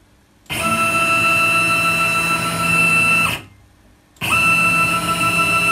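Stepper motor driving a CNC router's 5 mm-pitch ball-screw axis through two moves of about three seconds each, with a short pause between. Each move is a steady whine of several pitched tones over a rushing noise from the screw, dropping slightly in pitch just before it stops. The builder thinks the motion sounds smoother under the new ethernet motion controller, perhaps from a smoother step pulse train.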